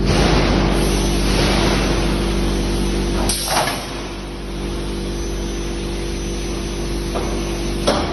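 Roll forming machine running: a steady motor hum with a continuous rush of mechanical noise, broken by a short louder burst a little over three seconds in and another near the end.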